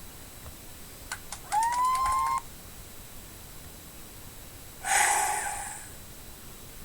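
Sound-effect previews played back on a computer: a few quick clicks, then a short electronic beep that slides up in pitch and holds, and about three seconds later a harsher, buzzier tone burst that starts sharply and fades away over about a second.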